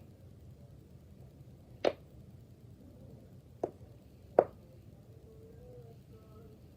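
Silicone pop-it fidget toy having its bubbles pushed through: three separate short pops, the last two less than a second apart.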